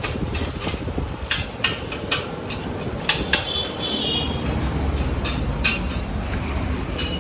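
Metal tools clinking and tapping, a dozen or so sharp irregular knocks, over a steady low rumble that grows stronger about halfway through.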